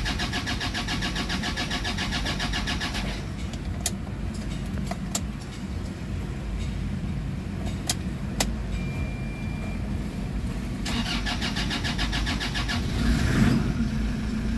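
A Toyota Fortuner's starter motor cranks its common-rail diesel engine in rapid, even pulses, twice, with a low rumble and a few clicks between the two attempts. The engine cranks but does not start, which the mechanic suspects is an airlock in the fuel system after the tank ran nearly empty.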